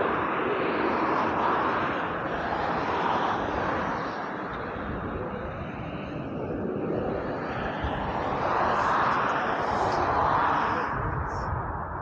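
Jet engine noise of a TUI Boeing 737 climbing away just after takeoff: a continuous broad rush that eases a little midway and swells again towards the end.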